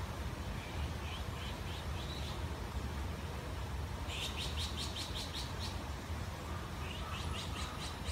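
Small songbird calling: a few short rising chirps about a second in, then a fast run of about ten sharp notes about four seconds in, and another shorter run near the end, over a steady low background rumble.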